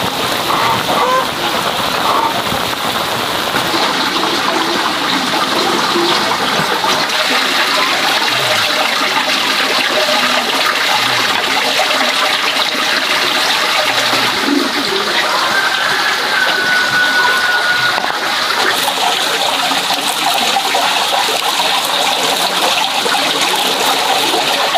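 Cut cabbage stir-frying in a hot pan, with a steady sizzle.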